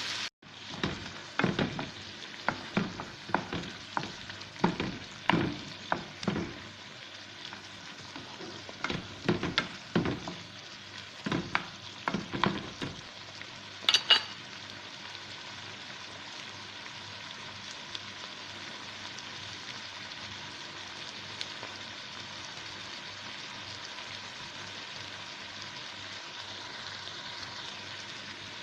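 Bitter gourd sizzling as it stir-fries in a pan, with a spatula knocking and scraping the pan in quick, irregular strokes over the first thirteen seconds or so. A sharp clack comes about fourteen seconds in, then the pan keeps sizzling steadily.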